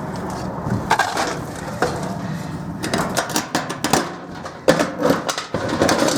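Electric drive motor being pulled out through a gutted clothes dryer's sheet-metal cabinet: irregular scraping, rattling and clanking knocks, busiest in the second half, with one sharp clank about three-quarters of the way in.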